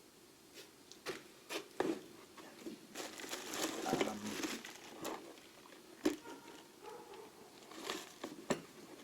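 Rummaging through a lathe's toolbox: scattered clicks and knocks of tool parts being picked up and set down, with a stretch of rustling about three to four seconds in.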